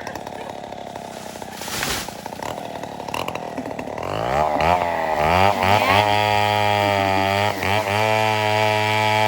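Two-stroke chainsaw running at lower speed, then revved up and down about four seconds in and held at high, steady revs through the rest.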